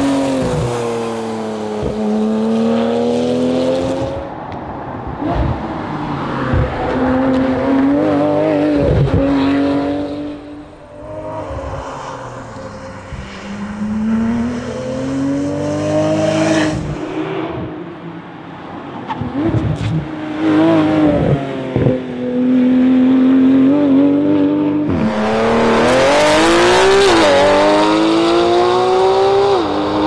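Porsche 911 GT3's flat-six engine revving hard under acceleration, its pitch climbing and then dropping sharply again and again as it shifts through the gears. About 25 seconds in it gets louder and brighter as the car comes close.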